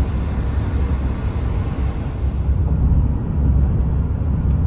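A car driving on the road: a steady low rumble of engine and road noise.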